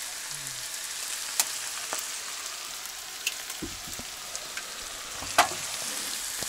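Vegetables frying in a large pan, a steady hiss of sizzling, with a few sharp clicks and knocks, the loudest about five seconds in.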